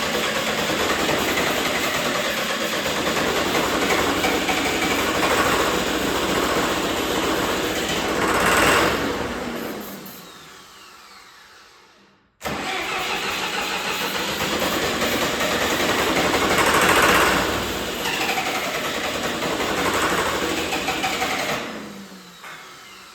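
John Deere 450C bulldozer's diesel engine cranked by the starter in two long tries of about ten seconds each. Each try swells briefly near its end and then winds down, without the engine starting. The owner traces the failure to start to no power reaching the fuel pump.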